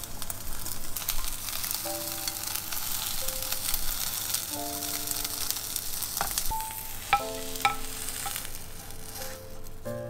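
Omelette frying in a nonstick pan, a steady sizzle, with a spatula scraping and tapping against the pan a few times in the second half. Soft background music plays underneath.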